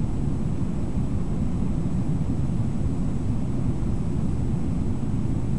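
Steady low rumble of a fast-flowing river running over shallow riffles, with no distinct events.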